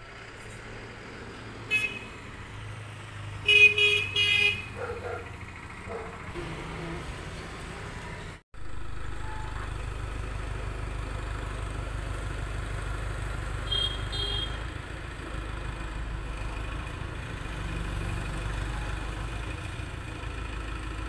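Vehicle horns honking on the road: a short toot about two seconds in, then a louder run of honks a little later. After a short break a heavy engine runs steadily with a low rumble, from the mobile hydraulic crane's diesel engine.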